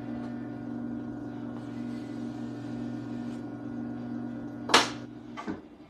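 Electric pottery wheel motor running with a steady hum of several fixed pitches. A loud sharp knock comes near the end, and just after it the hum drops away as the wheel is switched off.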